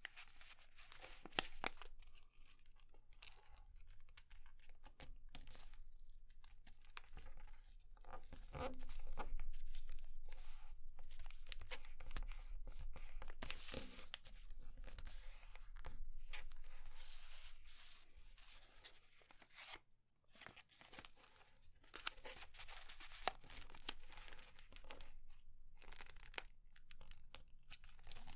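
A sheet of grid paper being folded and creased by hand: irregular rustling as fingers press and run along the folds, in stretches broken by short pauses.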